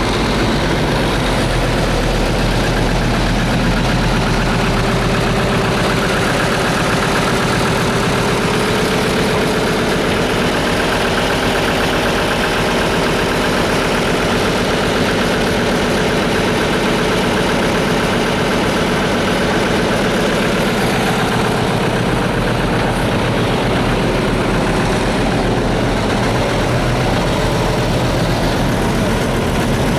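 Vintage excavator's diesel engine running loud and steady.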